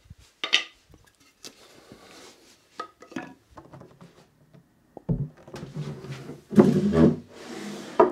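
Wooden battens knocking down onto a concrete floor with a few sharp clicks, then a heavy laminated kitchen worktop set down on them with a thump and shifted into place, wood scraping and knocking on wood; the worktop going down is the loudest part, near the end.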